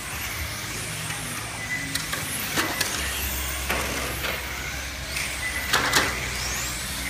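Small radio-controlled cars racing around a track, with a steady high whine and tyre noise. There are several sharp clicks and knocks, and a rising whine near the end as a car speeds up.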